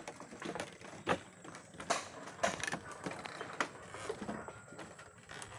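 Footsteps on a raised wooden-plank walkway: irregular knocks of the boards underfoot as people walk along it, the loudest about a second in and again about two and a half seconds in.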